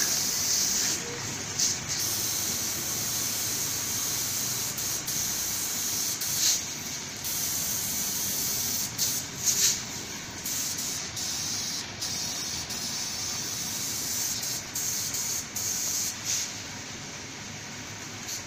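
Compressed-air paint spray gun hissing steadily as paint is sprayed onto a car bumper, in long passes broken by short pauses when the trigger is let go, dying away near the end.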